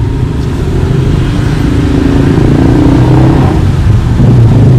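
A motor vehicle engine running, growing louder, with its pitch rising and falling briefly around the middle.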